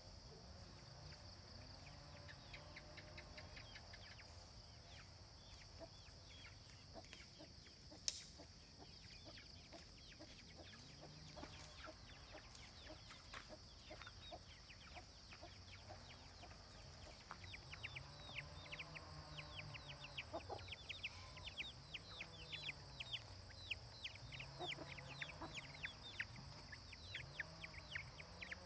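Faint chickens clucking, with many quick high falling cheeps, over a steady high drone of crickets. A single sharp click about eight seconds in.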